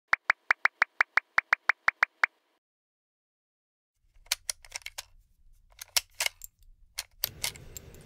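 A rapid run of about a dozen short electronic beeps, about five a second. After a brief silence comes a scatter of irregular sharp clicks and ticks over a faint low hum, with a steady hiss setting in near the end.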